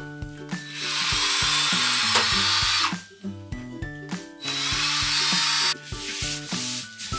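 A power drill runs twice, for about two seconds and then for just over a second, its motor whining over background music.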